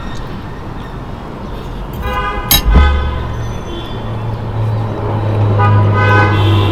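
Street traffic: vehicles running, with a horn sounding briefly twice. A sharp click comes about two and a half seconds in, and a low engine drone sets in just after it and continues.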